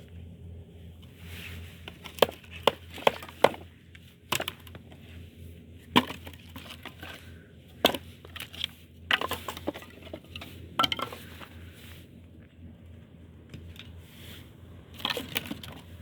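Firewood cracking and snapping: irregular sharp cracks, some coming in quick clusters of three or four.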